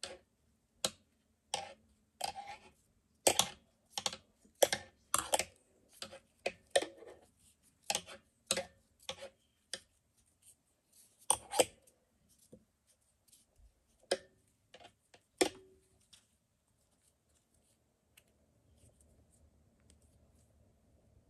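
Irregular sharp clicks and taps, about one or two a second, from hands handling a wire flower stem while winding yarn around it. They thin out and stop about sixteen seconds in.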